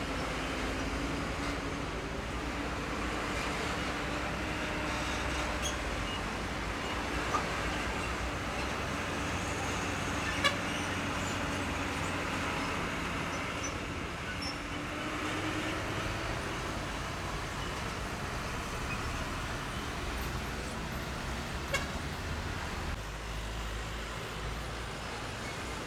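Heavy diesel trucks driving past over a railway level crossing: a steady engine drone and tyre noise, with three sharp knocks as wheels cross the rails, the loudest about ten seconds in.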